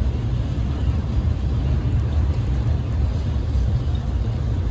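KTMB Class 26 diesel-electric locomotive's engine running, heard from a distance as a steady low rumble.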